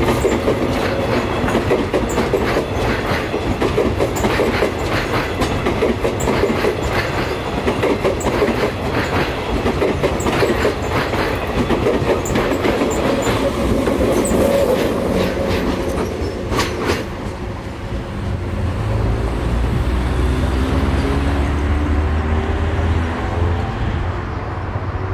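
Electric suburban passenger train passing close by, its wheels clattering with sharp clicks over rail joints and pointwork. After about seventeen seconds the clatter fades into a low hum with a faint rising whine as a second electric train approaches.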